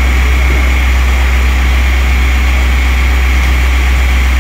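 Loud, steady low mechanical drone of running machinery, with a faint steady high whine.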